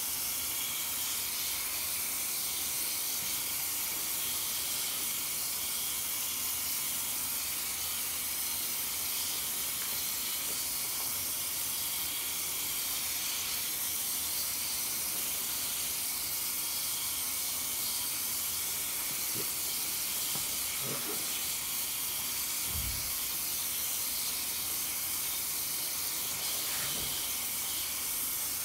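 Tap water running steadily onto a soapy sponge and splashing into a sink full of foam, a constant hiss, with a few faint low thumps in the last third.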